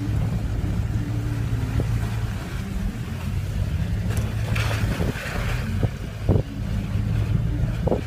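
Vehicle engine and road noise heard inside a moving car's cabin: a steady low drone, with a short burst of hiss around the middle and a few light knocks in the second half.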